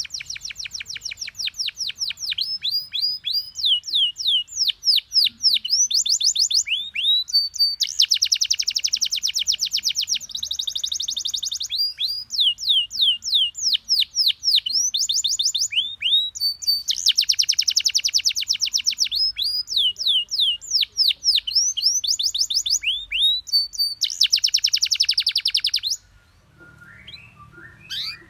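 Domestic canary singing a long, unbroken song of fast, repeated descending notes, broken three times by dense buzzy rolls. The song stops about two seconds before the end, leaving a few fainter, lower chirps.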